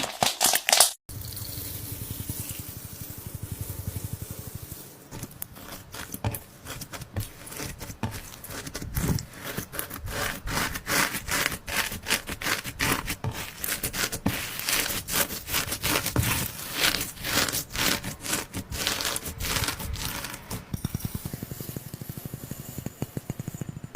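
Slime being squeezed and worked by hand, a dense run of sticky crackles and small pops.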